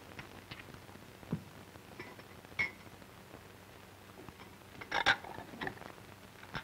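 Glass bottles and a glass graduated cylinder being set down on a desk: a few light knocks and clinks, the loudest pair about five seconds in, over the steady hiss of an old film soundtrack.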